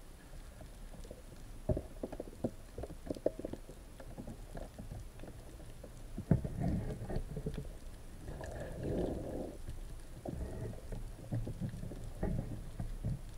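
Muffled underwater sound picked up through an action camera's waterproof housing: irregular low knocks and thumps over a water rumble, with a sharper knock about six seconds in and a short stretch of louder rushing noise a couple of seconds later.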